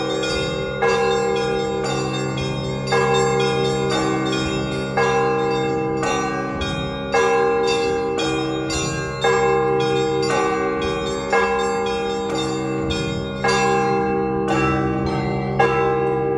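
Russian Orthodox church bells rung together in a peal marking the end of a service: a heavy bell stroke about every two seconds over a steady fast patter of small bells, their tones overlapping and ringing on.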